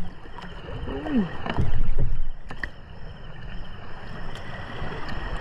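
Water splashing and sloshing, loudest for about half a second a little under two seconds in, with a brief falling vocal sound about a second in.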